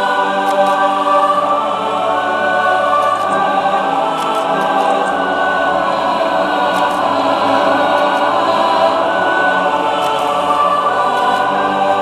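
Choral music: a choir singing long, held chords that shift every few seconds, with faint high ticks scattered through it.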